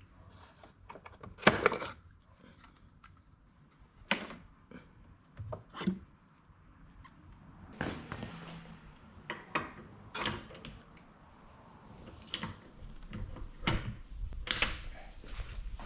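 A series of scattered knocks, clicks and thunks of hard objects being handled, about a dozen over the stretch, the loudest about a second and a half in.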